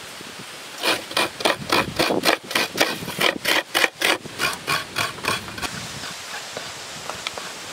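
Fresh coconut half scraped by hand against the serrated blade of a traditional coconut grater, shredding the white flesh. A quick run of rasping strokes, about four a second, starts about a second in and grows weaker after about five seconds.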